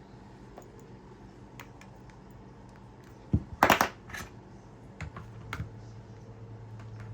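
A quick cluster of sharp clicks and clatter, like small hard tools or parts being handled and set down on a work bench, with a few more clicks a second later. A steady low hum comes in after that.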